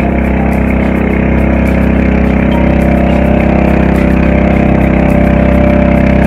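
Engine of a motorized outrigger boat (bangka) running steadily under way, loud and even, with a rushing of wind and water over it.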